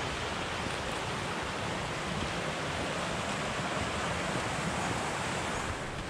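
Mountain stream rushing over rocks and small cascades: a steady rush of water.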